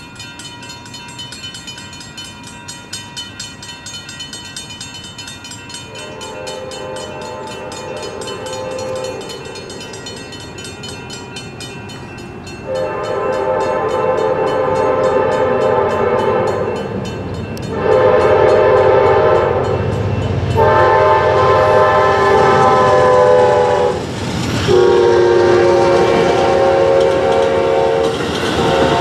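Safetran mechanical crossing bells and an electronic crossing bell ringing steadily and fast. Over them a train horn sounds, faint at first, then in a series of long, loud blasts as the train nears. Near the end the train reaches the crossing.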